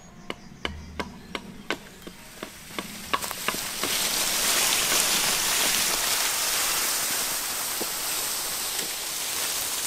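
A few light chopping knocks, then, from about three seconds in, a louder steady crackling rustle of a bundle of cut branches dragged over leaf litter.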